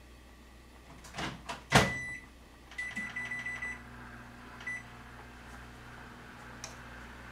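A microwave oven's door is shut with a few clicks and a sharp knock, then its keypad beeps: once, a quick run of beeps, then one more. About three seconds in, the oven starts running with a steady low hum.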